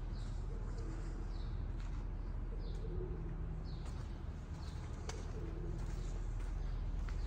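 Birds calling inside a large shed: short high falling chirps about once a second, with low pigeon coos now and then, over a steady low hum and a few sharp clicks.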